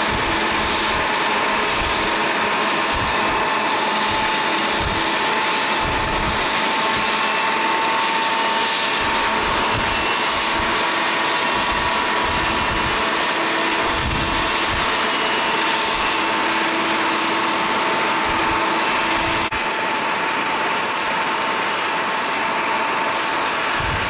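Jet airliner engines running at low thrust while taxiing: a steady rush with a constant whine, and irregular gusts of wind buffeting the microphone. The sound shifts abruptly once, about twenty seconds in.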